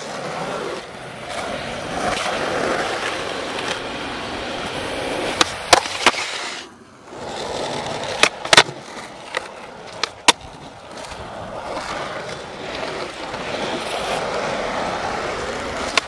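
Skateboard wheels rolling on rough asphalt with a steady grainy rumble, broken in the middle by a cluster of sharp clacks from the board hitting the ground.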